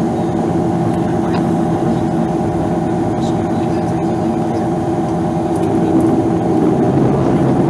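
Bombardier Q400 Dash 8 turboprop engines and propellers running steadily as the airliner taxis, heard inside the cabin beside the wing: a constant drone with a steady humming tone, growing a little louder about six seconds in.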